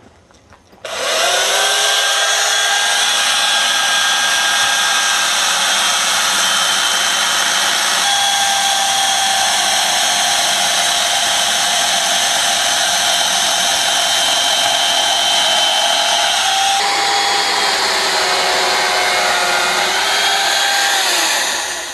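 Chainsaw running flat out with a steady, high whine while cutting into a large log. It starts abruptly about a second in, and its pitch sags slightly a few seconds before it cuts off at the end.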